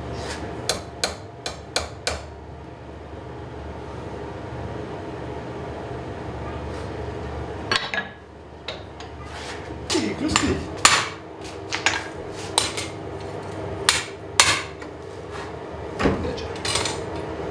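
Light hammer blows on the forged steel cross as it is straightened back into line. A quick run of about six taps comes near the start, then, after a pause of several seconds, more scattered blows, often in pairs.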